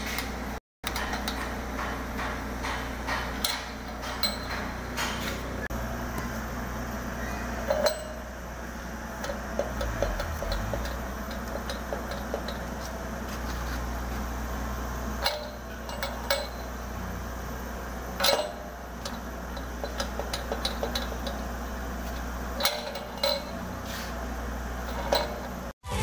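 Scattered metal clinks and knocks from a homemade gate latch of scrap steel pipe and square bar being worked by hand, over a steady low hum.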